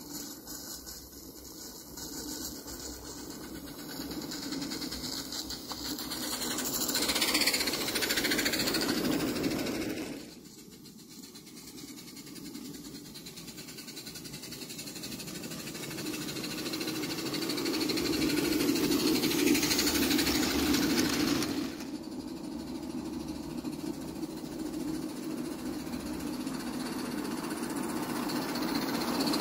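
Roundhouse Billy live-steam garden-railway locomotive running along the track, its sound growing louder as it draws near. The sound drops suddenly about ten seconds in and again a little past twenty seconds, then builds again each time.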